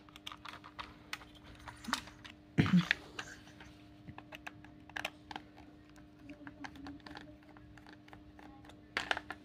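Small screwdriver working a tiny screw out of the plastic battery cover of a toy RC car's steering-wheel remote: light scattered clicks and ticks. There is one louder short sound nearly three seconds in.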